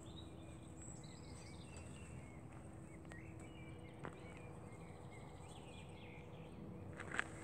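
Quiet outdoor ambience with faint birdsong chirping through most of it over a faint steady hum, a few soft clicks, and a short louder click near the end.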